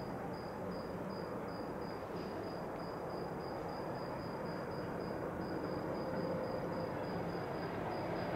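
A cricket chirping steadily, about three chirps a second, over a low steady rumble that grows a little louder in the second half.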